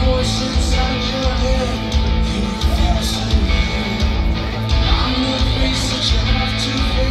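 Rock music with singing, guitar and a steady drum beat.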